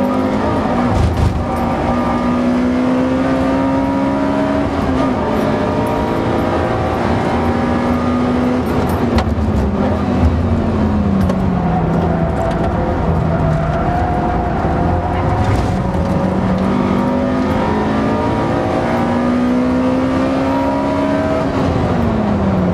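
Honda K20A 2.0-litre inline-four of an Accord Euro R (CL7) heard from inside the cabin at race pace: the engine note climbs steadily under full throttle, drops sharply at each upshift, and slides down under braking into corners before climbing again.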